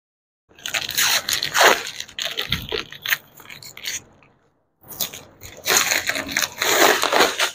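Plastic wrapping and packing tape being torn off a cardboard parcel box, crinkling and ripping in two spells with a short pause between them, starting about half a second in.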